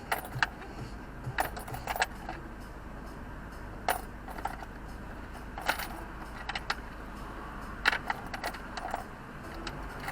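Irregular sharp clicks and clinks of small hard objects being handled, about ten spread over several seconds, over a steady low hum.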